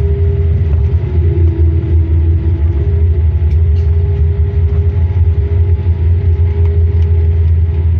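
Cabin noise inside a Boeing 787 airliner taxiing on the ground after landing: a steady low rumble with a constant whine over it. The whine drops a little in pitch for a couple of seconds about a second in.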